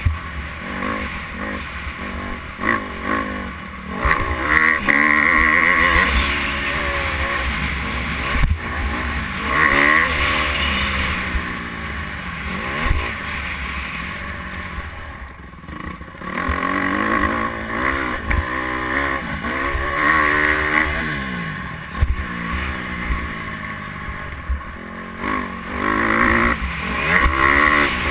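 Motocross dirt bike engine heard from a helmet-mounted camera while riding the track, its revs rising and falling in pitch again and again as the throttle is worked and the gears change. About fifteen seconds in the engine drops low for a moment, then revs up again.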